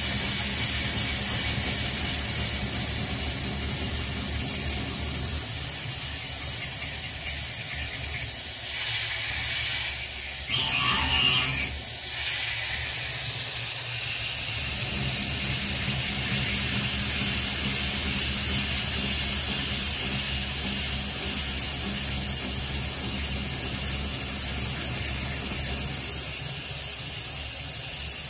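CNC-converted Grizzly G0704 mill, driven by a belt from a water-cooled 2.2 kW spindle motor, machining an aluminium block with an end mill under coolant spray. A steady spray hiss sits over a low spindle hum, with a short harsher burst of cutting noise about ten seconds in.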